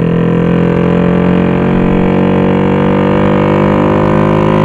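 Honda XRM Fi single-cylinder engine, bored to 62 mm and running on map 8 of an RS150 racing ECU, pulling hard under acceleration, its drone rising slowly and steadily in pitch without a gear change.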